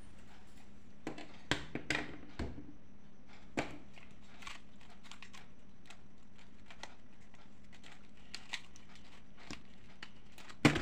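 Plastic pieces of a banana-shaped twisty puzzle clicking irregularly as it is turned by hand during a solve, with a louder knock near the end.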